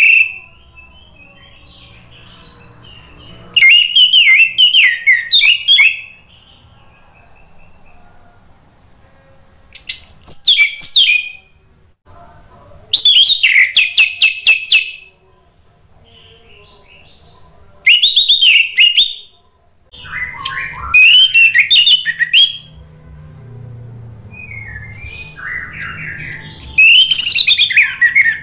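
Orange-headed thrush singing loud, fast, warbling phrases of one to two seconds, about six times, with quieter twittering in the pauses between. This is the full, open song that keepers call ngeplong.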